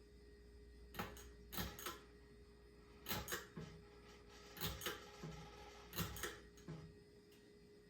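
Ceiling fan pull-chain switch clicking as it is pulled repeatedly, about four double clicks roughly a second and a half apart, over a faint steady hum.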